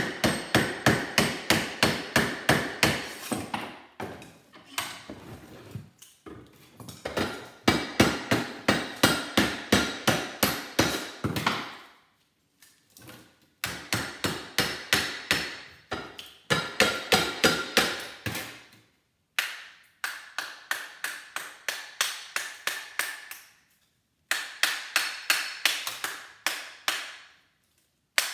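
Rapid hammer blows, about four or five a second, on a microwave oven transformer clamped in a vise, driving its copper winding out of the steel core. Each blow rings metallically. The blows come in runs of a few seconds with short pauses between them.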